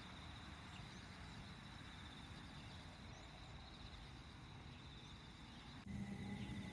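Faint outdoor background: a steady high insect trill over a low rumble. Near the end the level steps up suddenly and a steady low hum comes in.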